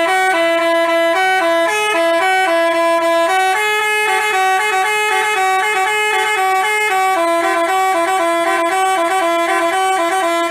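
Basuri telolet bus horn playing a quick melody of stepped notes, two tones sounding together, cutting off abruptly at the end.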